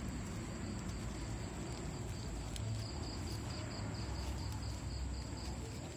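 Crickets chirping: a steady high trill, with an evenly pulsed chirp repeating several times a second through the middle. Under it, soft rustling and crinkling of plastic and raffia string as a guava air layer is tied by hand.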